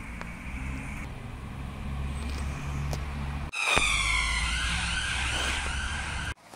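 Steady low traffic rumble of passing vehicles, then, after a sudden cut, an emergency-vehicle siren wailing, its pitch falling and wavering over the rumble for the last few seconds.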